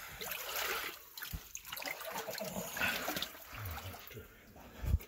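Shallow water splashing and sloshing as a person moves through it along a stone tunnel floor, with scuffing and a thump near the end.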